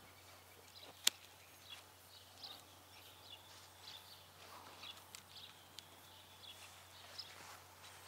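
One sharp snip about a second in: pruning shears cutting through a fruit-tree branch. Faint bird chirps come and go throughout.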